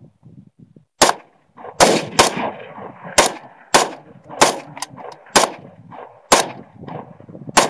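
A string of about ten semi-automatic gunshots, starting about a second in, fired at an uneven pace of roughly one every half-second to a second. Each shot trails off in a short echo.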